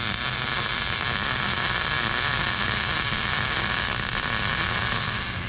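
MIG welding arc running steadily with an even, loud hiss and crackle. It stops abruptly near the end.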